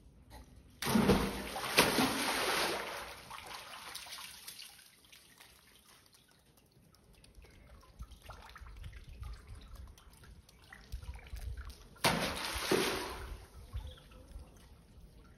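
Two splashes as a macaque drops into a concrete water tank, one about a second in and one near the end. Each is followed by a couple of seconds of water sloshing and lapping against the walls.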